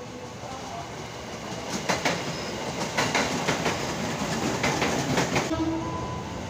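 Electric commuter train passing close, its wheels clacking over rail joints in a run of sharp clicks from about two seconds in, easing off near the end.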